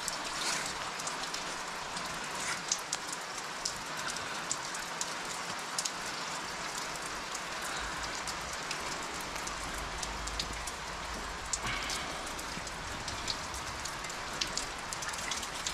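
Steady rain falling on hard ground: an even hiss with many separate drops ticking through it.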